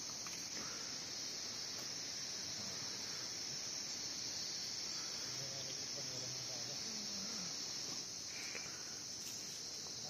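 Steady, high-pitched chorus of insects singing without a break.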